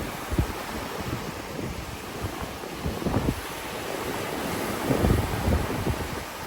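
Sea waves washing onto a beach, with wind buffeting the microphone in uneven gusts, strongest about three seconds in and again around five seconds in.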